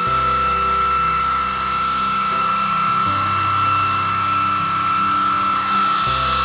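Hair dryer running steadily on its low setting, blowing on a long-haired cat's fur, with a constant high whine. Background music with sustained bass notes that change every few seconds plays under it.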